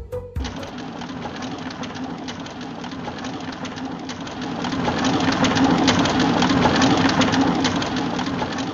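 Mine car rolling along rails: a dense rattling clatter over a steady low hum. It swells louder about halfway through and eases off near the end.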